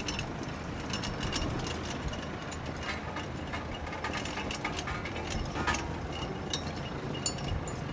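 Mechanical clicking and rattling, many small irregular ticks, over a steady low hum.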